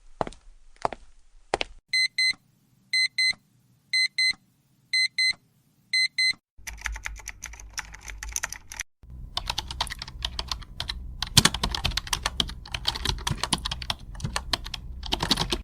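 Three sharp knocks, then an electronic alarm clock beeping in high double beeps, five pairs about a second apart, then fast typing on a computer keyboard.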